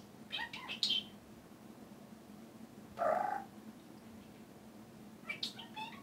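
Budgerigar chatter: a few short, high chirps in the first second, a brief warbling call about three seconds in, and more chirps near the end.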